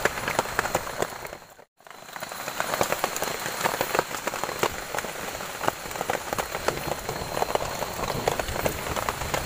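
Heavy rain falling, a steady hiss full of short, sharp drop impacts. The sound drops out for a moment about a second and a half in.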